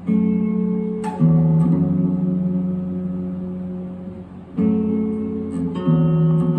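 Gold-top Les Paul-style electric guitar playing chords. Each chord is struck once and left to ring: two about a second apart, then a gap of a few seconds, then two more.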